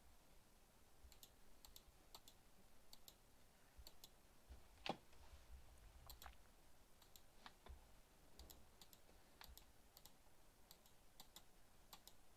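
Faint, irregular clicking of a computer mouse and keyboard, many of the clicks in quick pairs, with one louder knock about five seconds in.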